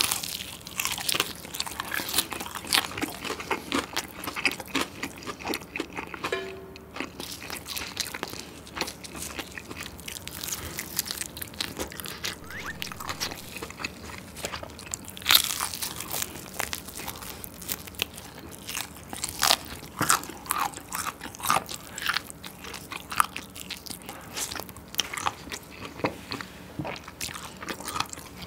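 Close-miked eating of crispy Kyochon Real Fried chicken: the battered crust crunching and crackling densely under bites and chewing, with a few louder crunches of fresh bites standing out.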